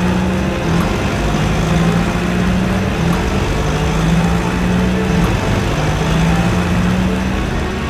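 Truck engine running steadily, a loud low drone that shifts back and forth between two close pitches, laid over a toy army truck.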